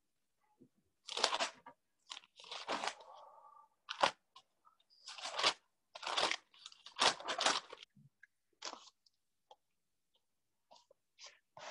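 Paper pages of a Bible being leafed through: a run of irregular dry rustles and crackles with short pauses between them.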